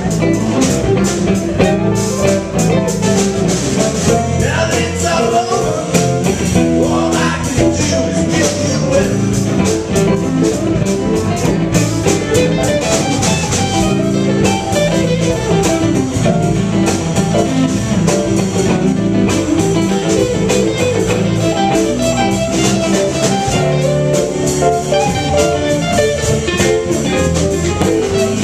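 Live blues band playing a minor-key blues with electric guitar, keyboard, bass and drums. A male voice sings at the start, then a hollow-body electric guitar takes the lead over the band.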